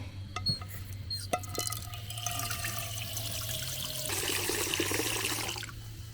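Water being poured into a pot, preceded by a few clicks and knocks of handling; the pour runs about four seconds, is heaviest near the end, and stops sharply.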